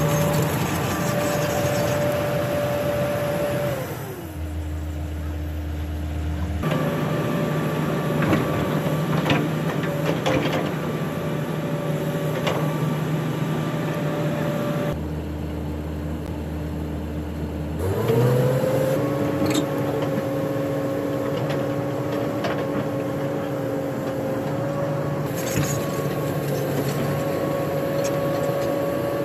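Komatsu hydraulic excavator running with a steady engine and hydraulic whine. The pitch drops lower for a stretch and then rises back up past the middle, with a few sharp metal clanks.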